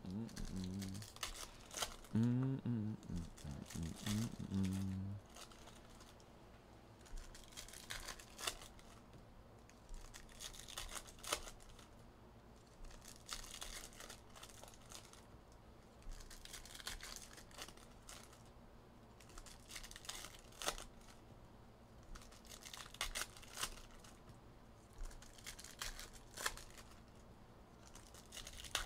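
Trading-card pack wrappers being torn open and crinkled by hand: scattered rustles and tears with small clicks. A low pitched sound whose tone moves up and down is heard during the first five seconds, louder than the rustling.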